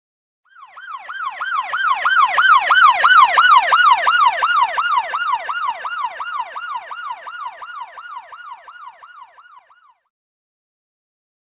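Police car siren in a fast yelp, about three rising-and-falling wails a second, passing by. It swells in from nothing, is loudest about three seconds in, then fades away gradually and is gone well before the end.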